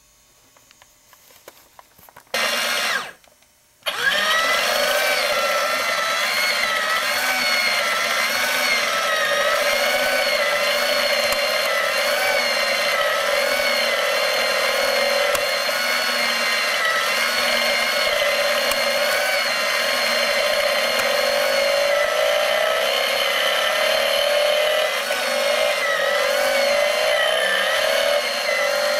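The small electric drive motor and plastic gear train of a BMW R90S see-through engine model kit. It is switched on briefly, stops, then runs steadily from about four seconds with a whirring whine that wavers up and down in pitch. The drive turns the crank, pistons and painted transmission gears, which the builder feels move sluggishly, perhaps because of the paint.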